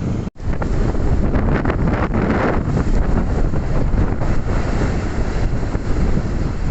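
Strong gusting wind buffeting the microphone, a heavy low rumble that cuts out for an instant about a third of a second in.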